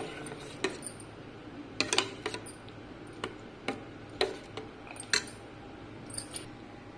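Steel spoon stirring thick yogurt raita in a stainless steel bowl, clinking and scraping against the metal in a dozen or so light, irregular ticks.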